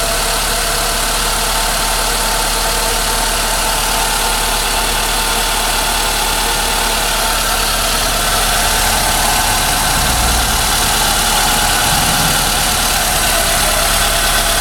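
Renault Logan engine idling steadily with no knock: the knock it makes for the first seconds after a cold start has died away.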